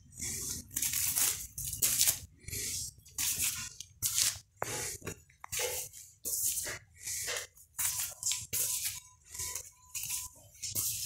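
LP records in clear plastic outer sleeves being flipped through one after another, the plastic crinkling and rustling in a short burst with each flip, about one a second.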